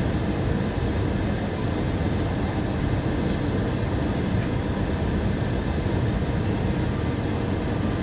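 Steady cabin noise of an Airbus A320 descending on approach: a constant rumble of the engines and rushing air, heard from inside the cabin over the wing.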